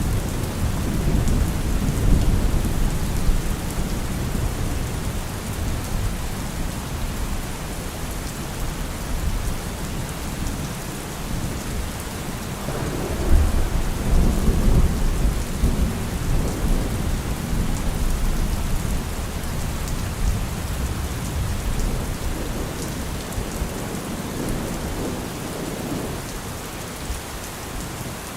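Steady rain with thunder rumbling low in the background, the rumble swelling about halfway through.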